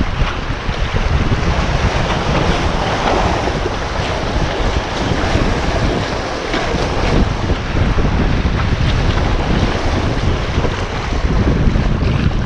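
Sea waves washing and splashing against shoreline rocks, with wind rumbling on the microphone.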